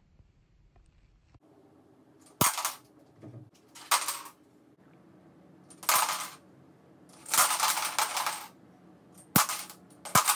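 Small plastic building blocks clattering in about six short bursts, one lasting about a second.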